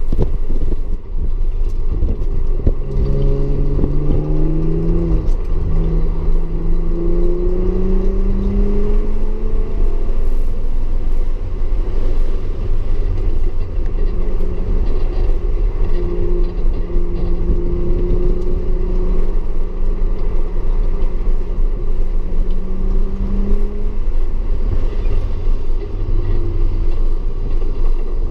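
Audi S4 engine pulling hard under acceleration, its note climbing with a step down at a gear change, then a long slow climb. A steady low road rumble runs underneath.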